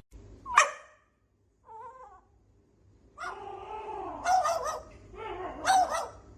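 A cat meowing and yowling: a short sharp cry, a faint call, then a run of drawn-out wavering meows, loudest about four and six seconds in.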